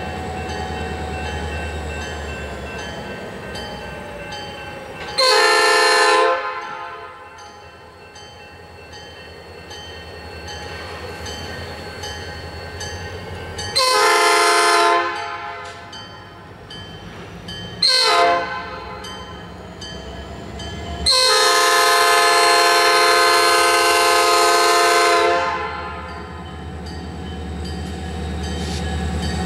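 Diesel locomotive air horn on Norfolk Southern SD40-2 No. 3322 blowing the grade-crossing signal: two long blasts, one short, then a final long one held for about four seconds. Between the blasts, the locomotive's EMD two-stroke V16 diesel rumbles, growing louder near the end as the train nears.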